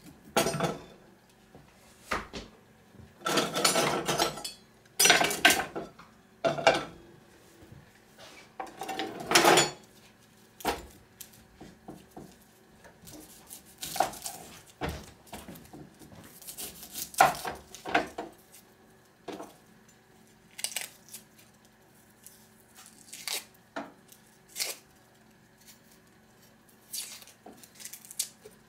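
Pots, pans and metal utensils being handled in a kitchen: irregular clinks and clatters, with a couple of longer scraping bursts.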